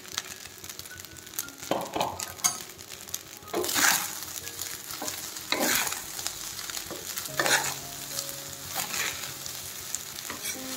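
Fried rice and shredded cabbage sizzling in a hot pan while a spatula stirs and tosses them, with about five louder scraping strokes spaced a second and a half to two seconds apart.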